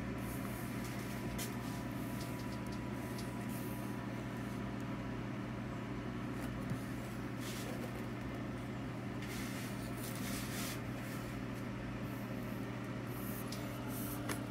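A steady low machine hum, with a few brief faint rustles.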